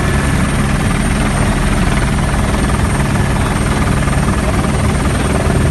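Helicopter in flight heard from inside the cabin: a steady, loud drone of turbine and rotor noise with a thin high whine held over it.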